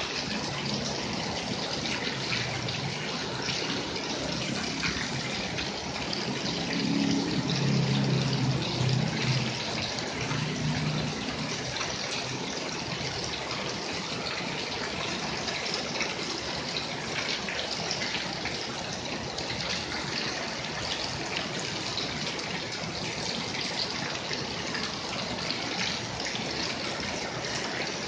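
Heavy rain falling steadily on paving and foliage, with water pouring off the roof edge and splashing onto the wet pavement. About a quarter of the way in, a low rumble swells for a few seconds under the rain.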